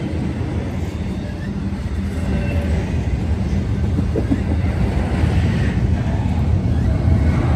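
Double-stack intermodal freight cars rolling past at track speed: a steady rumble of steel wheels on the rails, growing somewhat louder toward the end.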